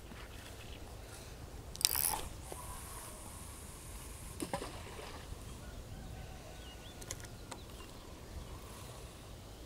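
A spinning rod being cast: one short swish about two seconds in as the rod whips forward, then a sharp click a couple of seconds later, over a steady low rumble of wind.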